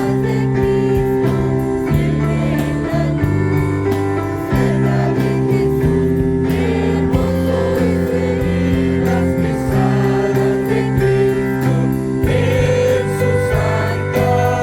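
Music playing: a song with singing over held chords and a steady beat.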